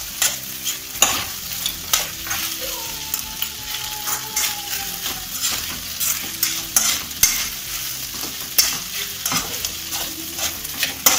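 Steel spoon stirring and tossing saucy baby corn Manchurian in a nonstick kadai over the heat: frequent scrapes and clacks of the spoon on the pan over a steady sizzle.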